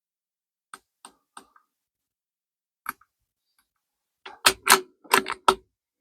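Light metallic clicks, then near the end a quick run of five or six louder clacks, from handling a bolt-action .22 rifle at the bench. No shot is fired.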